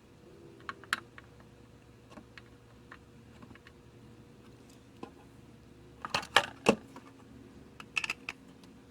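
Light clicks and taps of small tools and parts being handled on a repair bench, a few early on, then two quick clusters of louder clicks about six and eight seconds in.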